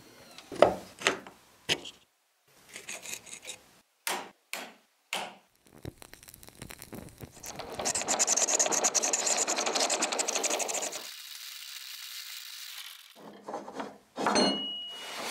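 A run of workshop sounds in quick succession: sharp metal taps and short scrapes as antique brass stamps are worked by hand, then a few seconds of steady abrasive noise from about eight seconds in. Near the end a wood lathe turns a new wooden handle, a gouge cutting the spinning wood.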